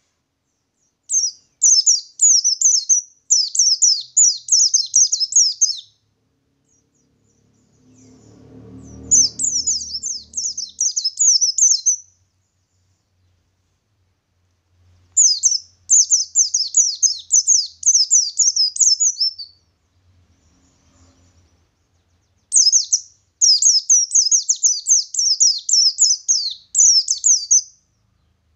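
Wild white-eye (pleci) singing its rapid rolling song: four long runs of quick high chirps, a few seconds apart.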